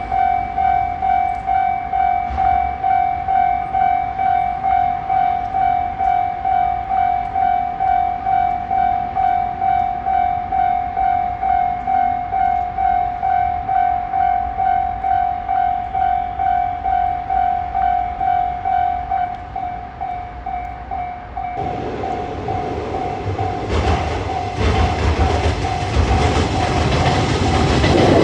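Railway level crossing alarm bell ringing in a quick, steady repeated ding, about two strokes a second. About three-quarters of the way through, a train's rumble rises and grows louder as it comes up to the crossing, with wheels clacking over the rails.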